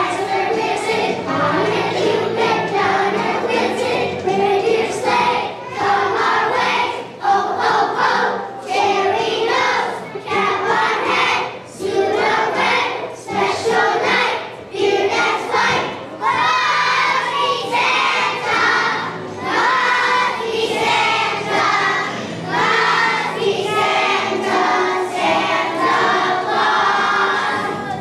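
Young children's choir singing a Christmas song in unison over musical accompaniment.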